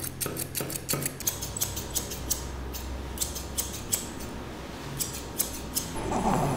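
Grooming scissors snipping through a shih tzu's fur in quick runs of cuts with short pauses. A short rushing sound comes near the end.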